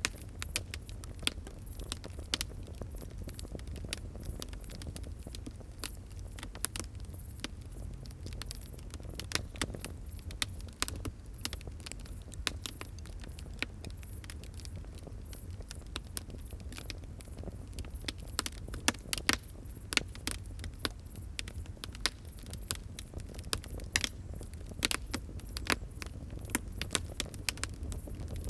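Wood fire crackling: many irregular sharp pops and snaps over a steady low rumble of the flames.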